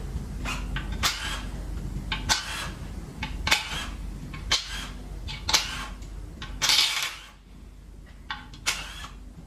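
Hand tools working metal engine parts during a teardown: short clicking, clinking strokes about once a second over a steady low hum. The hum drops away about seven seconds in.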